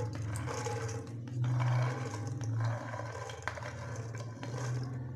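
Soaked chickpeas and their soaking water being scraped off a plate with a spatula into a pan of masala: an irregular sliding, scraping noise, loudest about one and a half seconds in, over a steady low hum.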